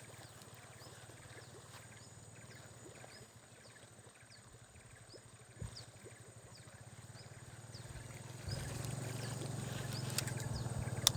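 Outdoor animal calls: a short high chirp repeats about once a second over a steady high insect-like whine. Beneath them runs a low buzzing pulse that grows louder about three-quarters of the way in. Two sharp clicks come near the end.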